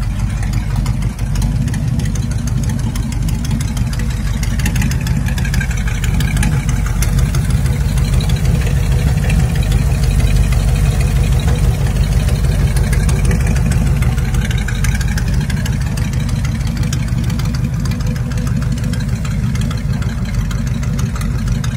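Flathead V8 in a hot-rodded 1922 Ford Model T roadster, idling steadily, its sound sitting mostly low. It gets slightly louder around the middle.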